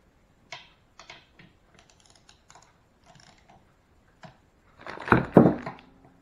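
Light clicks and taps of tools and parts being handled, then a louder clatter lasting about a second, some five seconds in.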